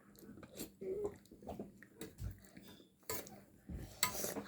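Spoons and bowls clinking: scattered light clicks and knocks at irregular intervals, with the clearest strikes late on.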